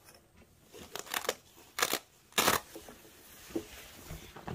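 Velcro (hook-and-loop) strips on a room-darkening curtain being pulled apart in about four short rips, spread over the first two and a half seconds.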